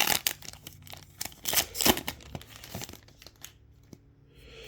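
Trading-card pack wrapper being torn open and crinkled: a dense run of crackles that dies away after about three seconds.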